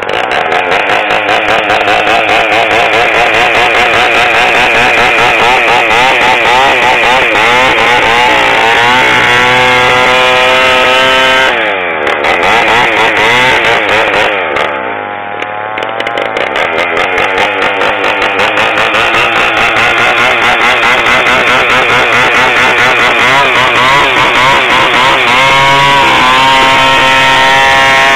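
Two-stroke chainsaw running at high revs under load. Its engine note drops and climbs back a few times, most clearly around twelve and fifteen seconds in.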